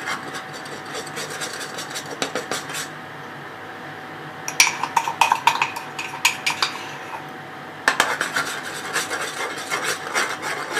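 A spoon scraping and clinking against a container in quick runs of strokes, lighter at first, then heavier from about four and a half seconds in and again from about eight seconds: whipped coffee being scraped into hot milk and stirred in.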